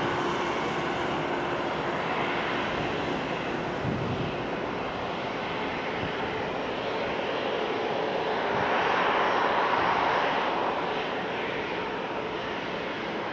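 Ryanair Boeing 737 jet engines running at taxi power, a steady rushing whine that swells louder for a couple of seconds past the middle. A brief low thud about four seconds in.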